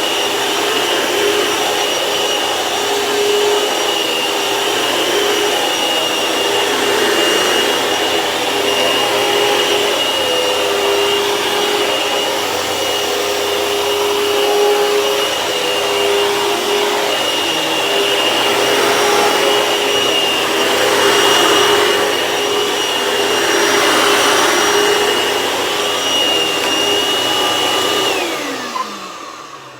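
Belt-driven vacuum cleaner running steadily with a steady whine, its drive belt newly replaced and sounding good. Near the end it is switched off and the motor winds down, the whine falling in pitch as it fades.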